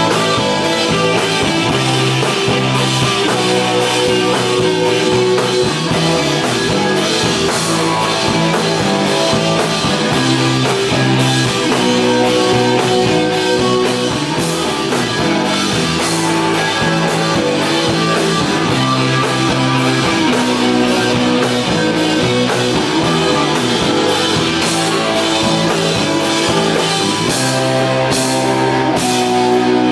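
A rock band playing live on electric guitars and a drum kit, loud and steady, with dense drum and cymbal hits.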